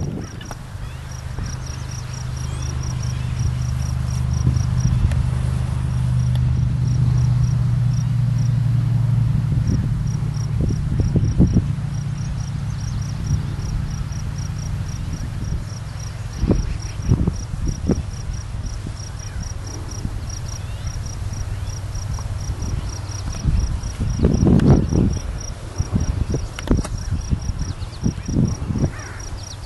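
An insect chirping in a fast, even, high-pitched pulse train, about five pulses a second. A steady low hum lies underneath, and scattered low thumps and rumbles come in the second half.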